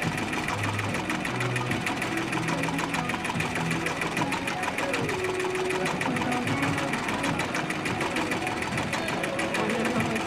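Commercial cap embroidery machine stitching a logo onto a snapback, its needles running in a rapid, steady clatter.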